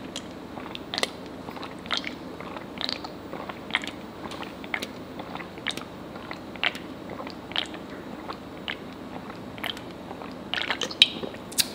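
Close-miked gulping as a person drinks a bottled fruit-flavoured milk drink, one swallow about every second. A quick run of clicks comes near the end.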